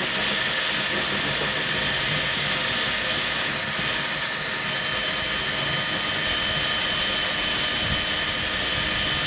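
Drill turning a spot weld cutter through a rusty spot weld in the Jeep's sheet-steel rocker panel at low speed: a steady, unbroken motor whine with a grinding cut.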